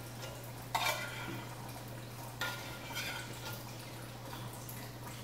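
Metal utensil scraping and clinking against a can and a skillet as food is spooned into hot grease, with a faint frying sizzle. Two louder scrapes come about one and two and a half seconds in, over a steady low hum.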